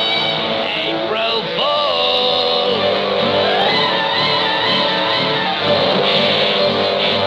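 Cartoon music score with many instruments, with notes that slide up and down about a second in and again in the middle.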